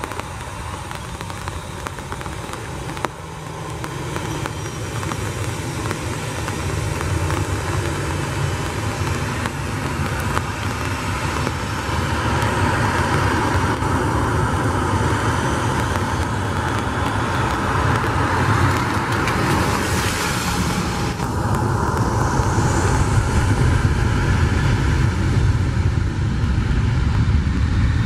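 Jet engines of a Boeing 737 running on the runway and spooling up, the noise growing steadily louder. Spray from the wet runway hisses as it rolls.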